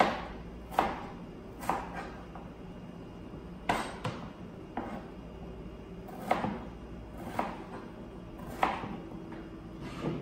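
Kitchen knife slicing potato on a plastic cutting board: sharp knocks of the blade hitting the board, about one a second at an uneven pace, over a steady low hum.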